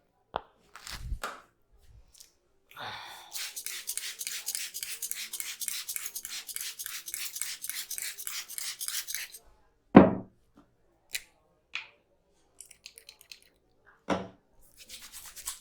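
Fast, even run of massage strokes, several a second for about six seconds, followed by two short loud slaps or thumps about four seconds apart, the first the loudest.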